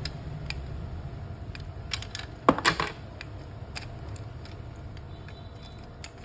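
Plastic and metal parts of a copier fuser unit clicking and rattling as they are handled by hand, with a quick cluster of loud clicks about two and a half seconds in, over a low steady hum.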